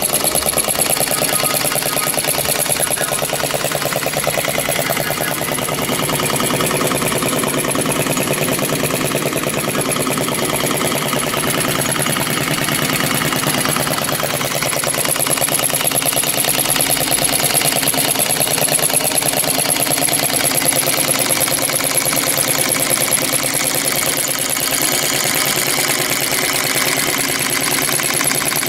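Flame-eater (vacuum) model engine running fast and steadily on a pure-hydrogen flame, a rapid, even mechanical clatter from its valve and crank as it belt-drives a small DC motor used as a generator.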